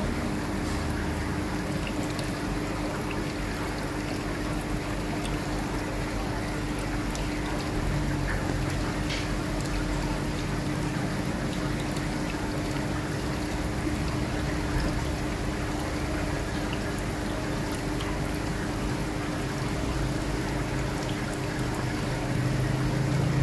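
Seawater trickling and splashing over a steady low hum, which grows a little louder near the end.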